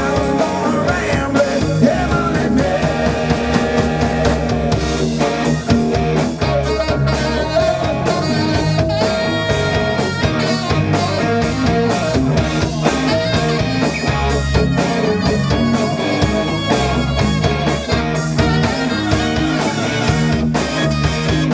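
Live rock band playing: electric guitar, bass guitar and drum kit with saxophones, in a steady mid-tempo groove.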